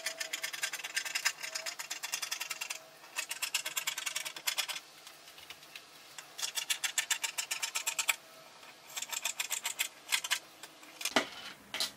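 Fabric scissors cutting thin dress-lining fabric: four quick runs of rapid snips with short pauses between, then two single clicks near the end.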